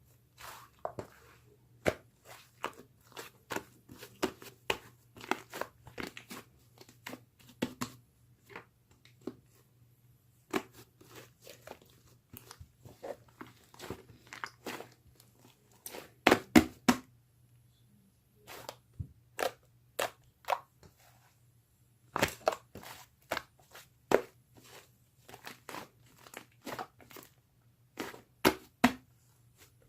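Slime being squeezed and played with by hand, making irregular clicks, pops and crackles with brief pauses, over a faint steady low hum.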